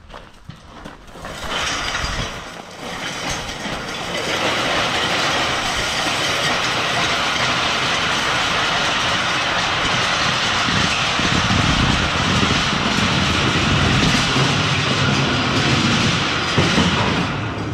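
All-iron wheeled welding table with a steel grating top being pushed along, its iron wheels grinding over gravel and the grating rattling steadily. A deeper rumble joins in about eleven seconds in.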